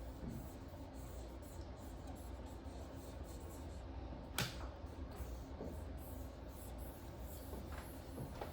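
Quiet marker writing, faint rubbing strokes over a low steady room hum, with one sharp click about four and a half seconds in.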